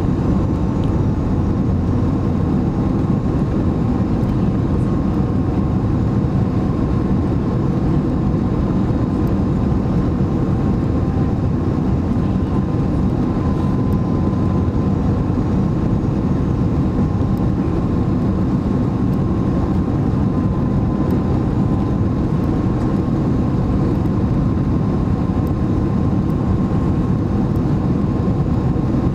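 Airbus A330 cabin noise on approach to landing: the steady rumble of the jet engines and rushing air, heard from a window seat beside the engine, with a faint steady whine above it.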